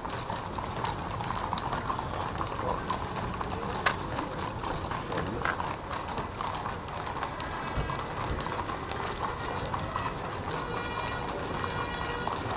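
Shod horses' hooves clip-clopping on an asphalt road as a column of mounted guard horses walks past. One sharper click stands out about four seconds in.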